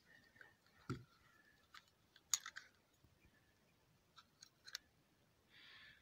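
Mostly near silence, with a few faint, scattered clicks from car jumper cables and their clamps being handled. The loudest click comes about two and a half seconds in.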